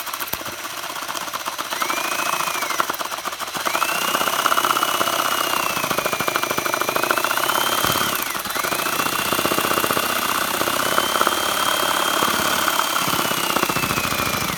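Power drill driving a LEGO chainsaw's crankshaft and blade, the plastic LEGO parts clattering rapidly. The drill motor's whine rises and falls with the trigger and drops out briefly twice.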